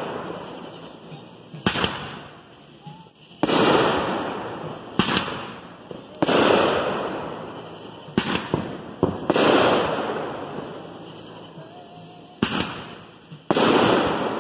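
Consumer aerial fireworks bursting overhead: about nine sharp bangs a second or two apart, each followed by a long crackling tail that fades away.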